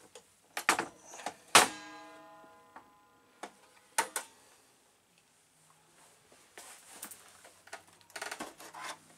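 Cabinet door under a trailer's kitchen counter opened and shut: clicks and knocks, the loudest about a second and a half in, ringing briefly. Near the end, clicks and rattling as the refrigerator door latch is worked.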